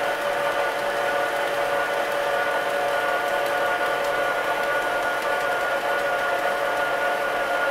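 Electric stand mixer running steadily at low speed, its motor giving a steady whine as the dough hook kneads bread dough in a stainless steel bowl.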